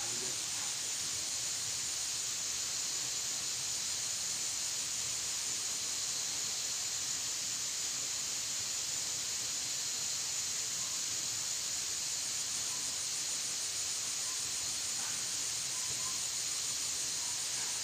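A steady, high-pitched drone of insects, holding at one level.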